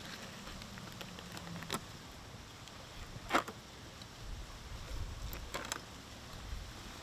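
Fillet knife cutting a tuna fillet on a rubber cutting mat: soft scraping with a few short sharp clicks, the loudest about halfway through and a quick cluster near the end.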